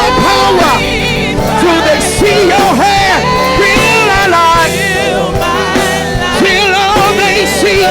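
Live gospel worship music: a band playing with voices singing and ad-libbing over it.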